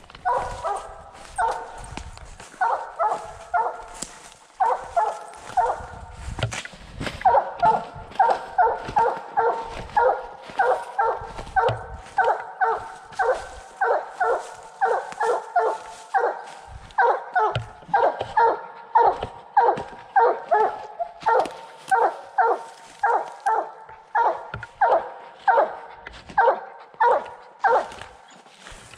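A redtick English coonhound barking treed: short, evenly repeated chop barks at the foot of a tree, about two a second for most of the stretch, after a more uneven start. It is the hound's tree bark, the sign that she has a raccoon up the tree.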